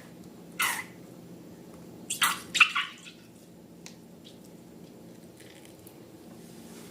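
Wet slime being squeezed and worked by hand, giving short squelching bursts, a single one about half a second in and a quick cluster of three around two seconds in, then a few faint ticks over a low steady hum.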